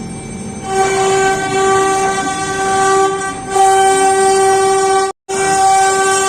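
CNC router spindle whining steadily as it cuts a door-panel design, with the hiss of the cut underneath. The whine grows louder a little under a second in, and the sound cuts out for an instant about five seconds in.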